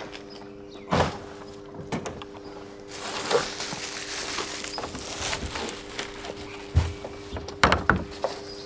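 Plastic wheelie bin lids and a bin bag being handled: several knocks and thuds, the loudest near the end, with plastic rustling between them, over a faint steady hum.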